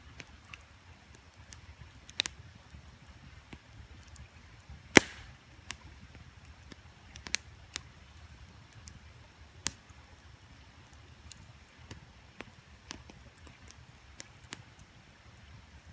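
Wood campfire crackling, with irregular sharp snaps and pops and one loud pop about five seconds in, over a faint steady low rush.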